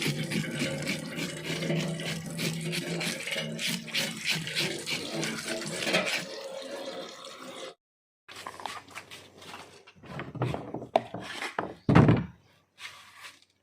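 Water running and splashing from a tap onto the fish and surface being washed, a dense steady rush. It cuts off abruptly about eight seconds in. Then come scattered knocks and handling sounds, with one heavy thump near the end.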